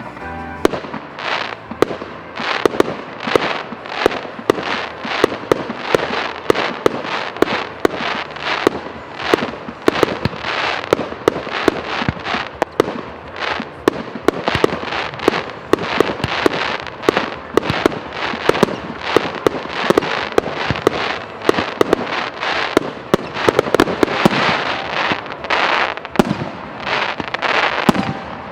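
Fireworks display going off in a continuous barrage: a dense, unbroken run of sharp bangs, several a second, with no let-up.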